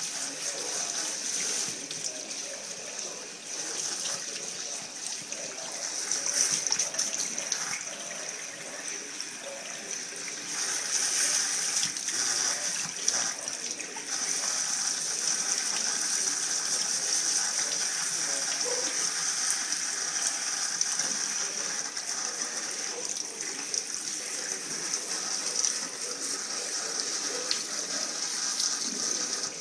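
Sink tap running, a steady hiss of water splashing into the sink that grows louder about ten seconds in.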